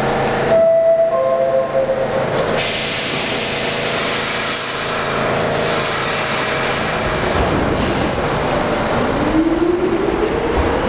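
R46 subway train at a station platform: a brief two-tone door chime near the start, then a long hiss as the doors close. From about nine seconds in, the traction motors' whine rises steadily in pitch as the train starts to pull out.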